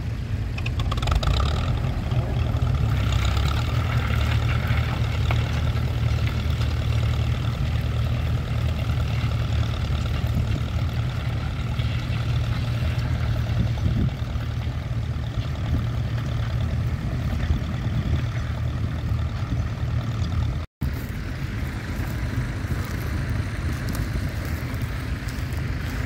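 Vintage grey Ferguson tractor engine running steadily under load, pulling a mounted two-furrow plough, heard close behind. About three-quarters through, the sound drops out for a moment and comes back as a weaker, more distant tractor engine sound.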